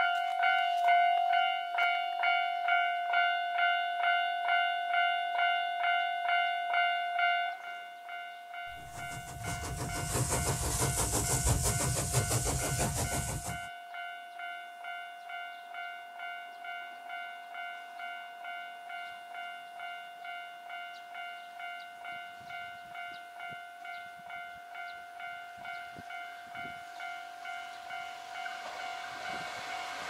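Railway level-crossing warning bell ringing in a steady, rapid ding about twice a second. A train passes loudly for about five seconds roughly a third of the way in, and another train's noise swells near the end.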